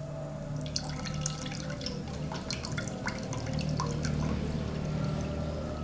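Tamarind water being poured from a small bowl into a pot of water, with many quick drips and splashes starting about a second in and thinning out near the end.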